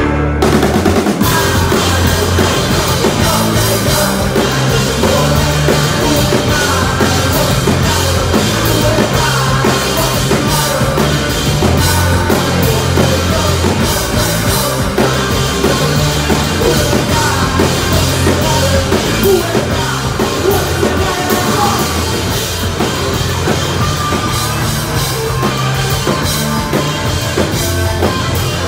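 Live rock band playing loud and fast, with a pounding drum kit, electric guitars and bass. The whole band crashes in at the very start after a brief break.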